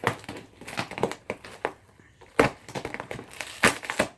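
A taped cardboard box being forced open by hand: an irregular run of sharp cracks and crinkles from the cardboard and packing tape, the loudest a little past halfway and near the end.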